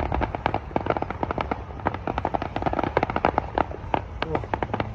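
Fireworks display: a dense, continuous crackle of many small bursts popping in quick, irregular succession, several per second.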